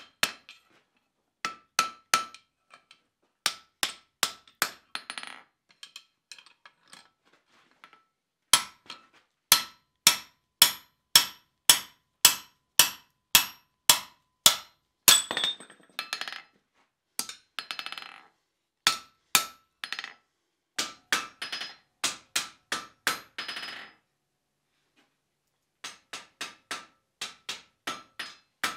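Hand hammer striking a hot bar on a steel anvil: runs of sharp blows, about two a second, each with a brief metallic ring, broken by short pauses.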